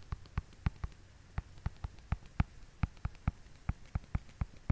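Stylus tapping and clicking on a tablet screen during handwriting: a run of sharp, irregular clicks, about four a second.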